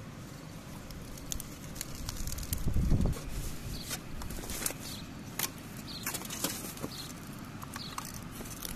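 Crumpled aluminium foil crinkling and crackling in irregular bursts as it is pulled open by hand, with a short low rumble a little under three seconds in.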